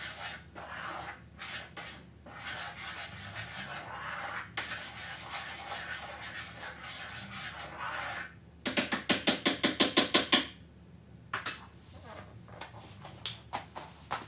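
Kitchen work: scraping and rubbing with small clicks, then about nine seconds in a loud burst of rapid, evenly spaced ratchet-like clicking that lasts about two seconds.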